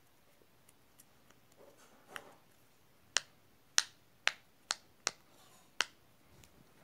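Bubbles of a small silicone pop-it fidget toy being pressed through with the fingers, popping in six sharp clicks over about three seconds after some soft handling.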